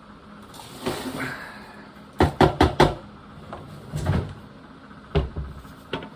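Bird feeder being knocked against something hard to tip out mouldy seed: a rustle, then a quick run of four sharp knocks, followed by a few single duller thumps.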